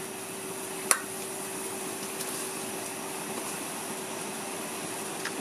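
Pot of water at a rolling boil on a gas burner, poaching fish: a steady bubbling hiss, with one light click about a second in.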